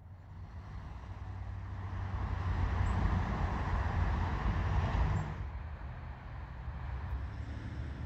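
A vehicle going by, mostly low rumble with some rushing noise. It builds over the first few seconds, peaks, and drops off about five seconds in.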